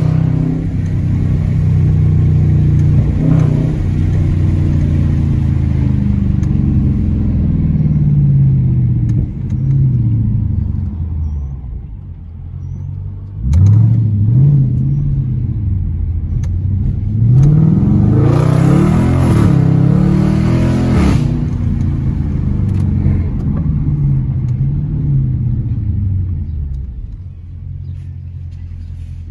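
Dodge Challenger R/T's V8 exhaust with the mid mufflers deleted, revving up and down under driving. Pitch falls away at first, then a sudden hard pull about halfway through and a second, louder one a few seconds later, each rising in pitch, before it drops back to steady lower running near the end.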